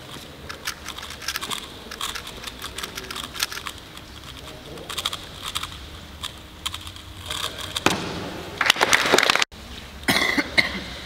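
Speedcube being turned fast, a stream of sharp plastic clicks from the layer turns. About eight seconds in a louder, denser rush of clattering noise takes over for over a second, cut off suddenly, then clicking resumes briefly.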